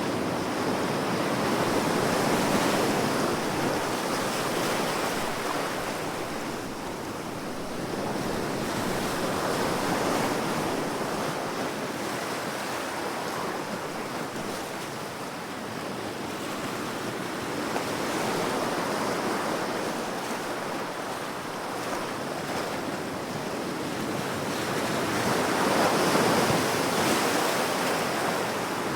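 Ocean surf: waves breaking and washing up the shore, the rush swelling and falling away about every eight seconds.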